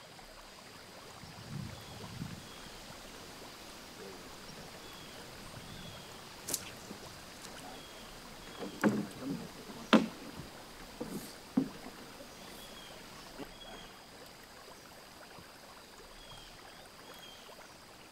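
Canoe on still water: quiet paddle and water sounds with a few sharp knocks of gear against the hull, the loudest about ten seconds in. Faint short bird chirps recur throughout.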